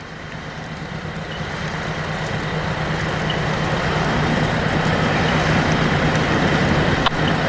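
Heavy vehicle engine running steadily with a constant low hum, getting louder over the first four seconds and then holding level. A single short click comes about seven seconds in.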